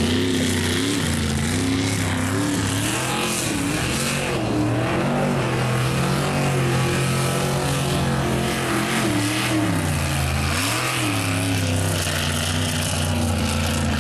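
Mud truck engine revving hard under load, its pitch rising and falling again and again, with a deep dip about ten seconds in before it holds high.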